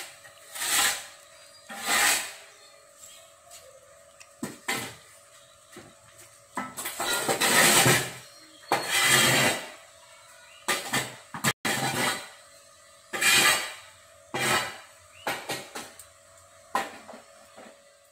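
Irregular close rustling and scraping noises in a dozen uneven bursts, some brief and some over a second long, the longest and loudest about 7 to 10 seconds in. A faint steady hum runs underneath.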